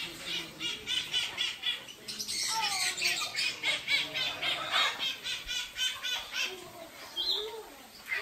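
Parrots in aviaries squawking and chattering in rapid repeated calls, about four a second.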